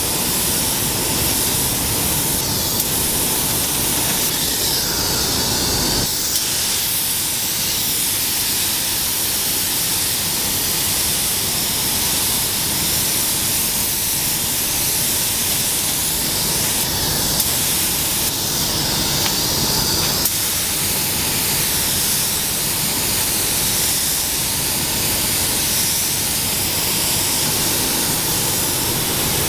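Compressed-air gravity-feed paint spray gun hissing steadily as it atomises paint onto a car's body panels. The hiss shifts abruptly about six seconds in.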